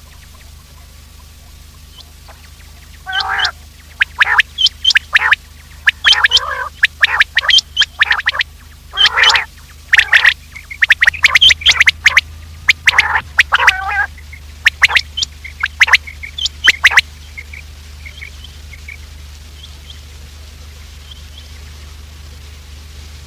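Common quail calling: a dense run of short, sharp calls for about fourteen seconds, then only a few faint high chirps.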